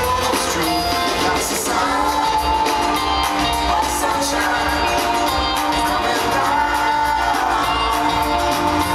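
Live band music with singing in a large hall, a steady beat underneath, and some shouts and whoops from the crowd.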